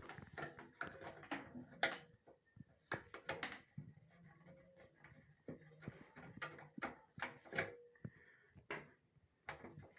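Irregular clicks, taps and light knocks as the control knobs are pulled off a gas stove and its parts are handled.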